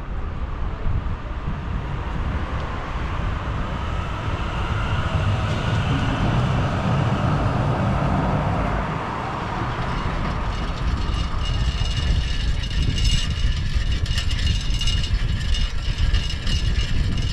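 Passenger train running along the track, a steady rumble. About eleven seconds in the sound changes to lighter clicking and rattling.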